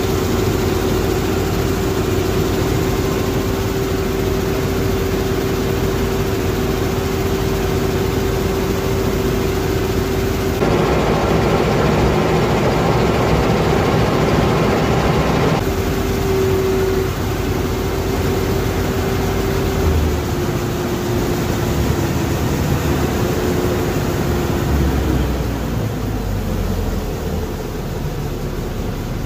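Claas Dominator 48S combine harvester running, with a steady engine drone and a high steady whine over it. A louder, rougher stretch starts and stops abruptly in the middle, and in the last third the whine steps down in pitch.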